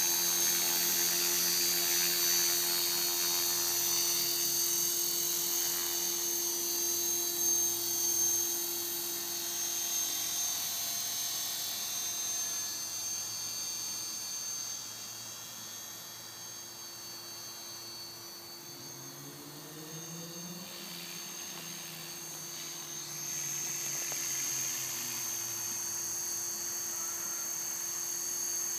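Align T-Rex 450 Pro electric RC helicopter flying: the steady high whine of its brushless motor and gears over the rotor blades. It fades as the helicopter climbs away, with brief rises and falls in pitch around twenty seconds in, then grows louder again near the end.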